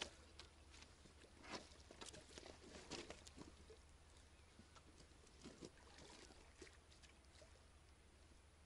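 Faint, irregular splashes and clicks from a hooked fish being played in close to the bank on rod and reel, busiest in the first three seconds and again around the middle.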